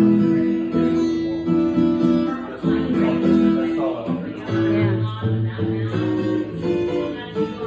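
A live band plays an instrumental passage: guitar chords held and changed over low bass notes.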